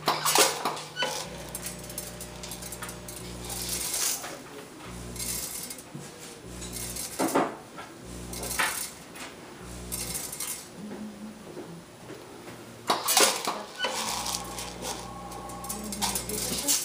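Logical Machines S-4 automatic weigh-filler running: its feed pan hums low in on-off stretches as it meters seed into the weigh hopper, and several times the hopper dumps a 1 g charge of seed that clatters into a stainless steel bowl. A light plastic cup clinks near the start and near the end.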